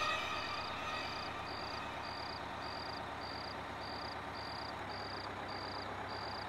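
A cricket chirping steadily: short, high, evenly spaced chirps about twice a second, over a low steady hum.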